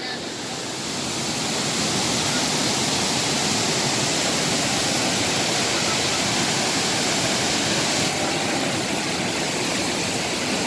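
Waterfall rushing: a steady roar of falling water that grows louder over the first two seconds and then holds even.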